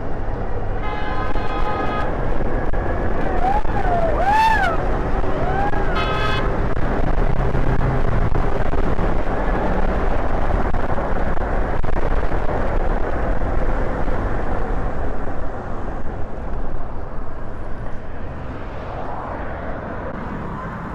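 Steady rumble of wind on the microphone and road traffic while riding, easing off in the last few seconds. A car horn sounds for about a second near the start, and a few short rising-and-falling honking calls come around four to six seconds in.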